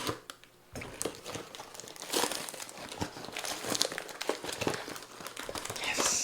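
Packaging being pulled open by hand to free a knife from heavy wrapping: dense, irregular crinkling and tearing that starts just under a second in and keeps on.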